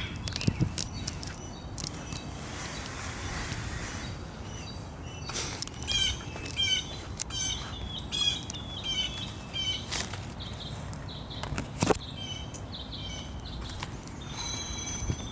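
Birds chirping in quick repeated notes over steady outdoor background noise, with a few sharp clicks, the loudest about twelve seconds in.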